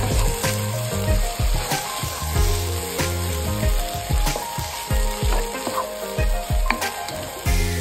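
Corn kernels, onion and dried shrimp sizzling in a nonstick pan while a wooden spatula stirs and scrapes them in repeated strokes. Music plays underneath.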